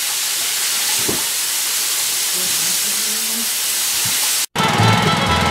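Water from a garden hose pouring into a metal outboard test tank, a steady splashing hiss as the tank is refilled. It cuts off abruptly a little over four seconds in.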